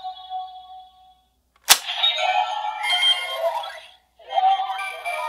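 DX Arc Ariser transformation toy: a chiming electronic tone fades out, a sharp plastic click comes about a second and a half in, and the toy's small speaker then plays two short bursts of electronic voice call and music, part of its henshin (transformation) sound sequence.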